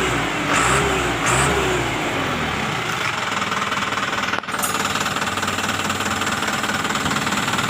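Isuzu Giga truck's diesel engine blipped in quick throttle bursts, each falling back in pitch, then settling to a steady idle. It is running through a newly fitted flexible exhaust pipe.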